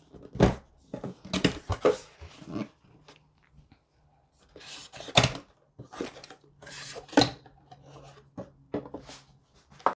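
Cardboard packaging being opened and handled: a series of sharp taps and knocks as box flaps are pulled open and an inner box slides out, with rustling cardboard and paper scrapes.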